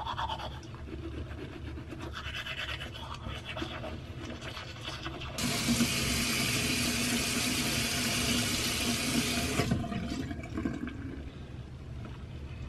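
Manual toothbrush scrubbing teeth, then a bathroom tap runs steadily for about four seconds, starting and stopping abruptly, before the brushing resumes faintly.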